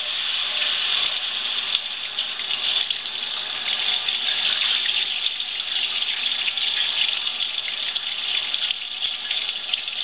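A 1954 Frigidaire washing machine refilling: water running steadily into the tub.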